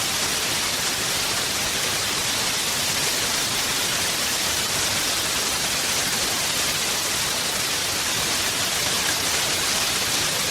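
Heavy rain falling in a steady downpour: an even, unbroken hiss.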